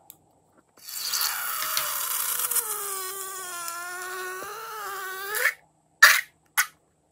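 Thick liquid and air squeezed out through the snipped neck of a rubber balloon: a long squeal lasting about five seconds, its pitch wavering and rising as the balloon empties, then two short squelches near the end.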